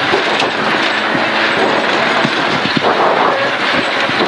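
Cabin noise of a gravel rally car driven hard: the engine running under load, with stones and gravel drumming on the underbody and the chassis rattling and knocking irregularly over the rough road. The car sits low on its asphalt setup and its shock absorbers are worn out, so it hits the ground underneath.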